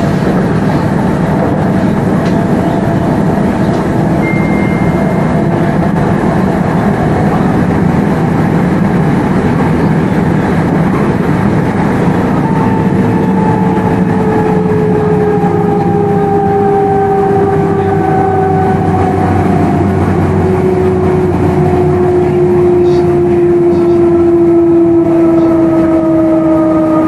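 c2c Class 357 electric multiple unit running, heard from on board as a steady rumble. From about halfway through, the electric traction whine falls slowly in pitch as the train slows.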